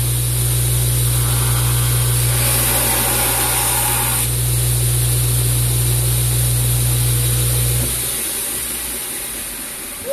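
Wilmont LB1000 2x72 belt grinder running with a steady low hum while a steel knife blank is ground against the belt, the grinding hiss swelling and easing with the passes. About eight seconds in the motor is switched off and the belt winds down.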